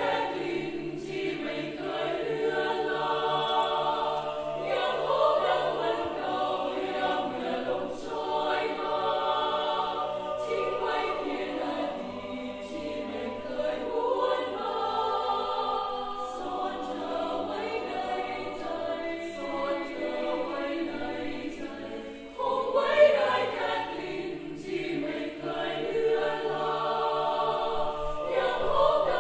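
A choir singing a song together in choral harmony, with voices held on sustained notes. There is a short dip about 22 seconds in, then the choir comes back in loudly.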